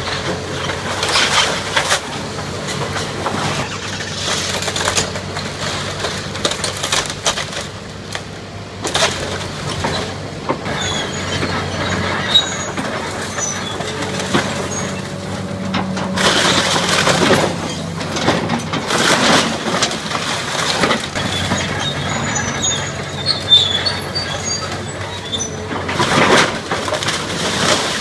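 Hitachi Zaxis hydraulic excavator's diesel engine running steadily while its bucket and thumb tear at and crush the wooden framing of a building. Repeated cracking and crashing of splintering timber and falling debris, with short high squeaks now and then.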